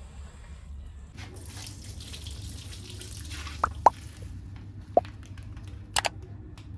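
Water hissing and dripping, with a few single drops plinking about halfway through. Near the end come a pair of sharp clicks. A steady low hum runs underneath.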